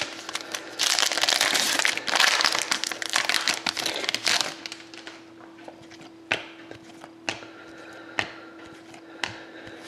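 Panini Select trading card pack wrapper being torn open and crinkled, a dense crackling that runs from about a second in to nearly halfway through. A few single sharp clicks follow as the cards are flicked through.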